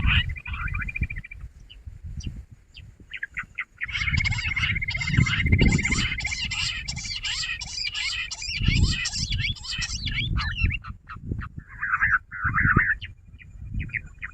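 Jungle bush quail calling: a chorus of shrill chirps over a rapid, even trill on one pitch. The calls break off for about two seconds shortly after the start, then resume, ending in a few short bursts. Low rumbling noise sits underneath.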